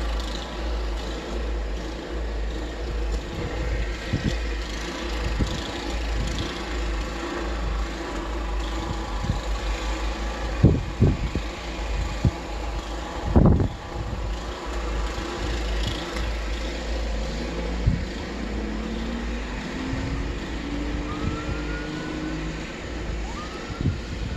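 An engine running steadily with a deep rumble, a few knocks partway through, and a rising whine in the second half.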